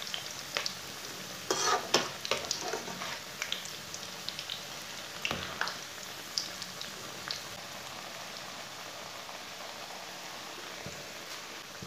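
Onion pakoras deep-frying in hot oil in an aluminium wok: a steady sizzle. A perforated metal spatula clinks and scrapes against the pan as it turns them during the first several seconds, loudest about two seconds in, after which only the sizzle goes on.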